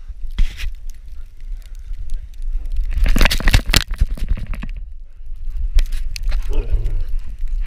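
Rumbling, scraping handling noise from an action camera strapped to a husky as it runs and plays in snow: fur and snow rub against the microphone, with a loud scratchy stretch about three to four seconds in. Near the end comes a short low grumble from a dog.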